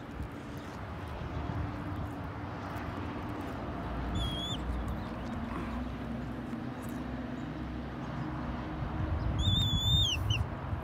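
Steady low rumble on the microphone. Over it come two high, clear whistled calls: a short one about four seconds in, and a longer one near the end that drops in pitch as it finishes.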